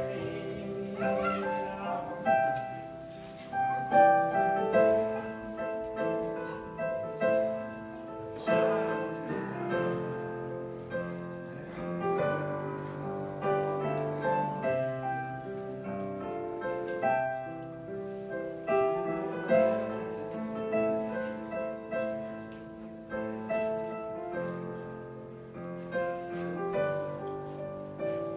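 Piano playing instrumental music, notes and chords struck and left to ring, as the church offering is received.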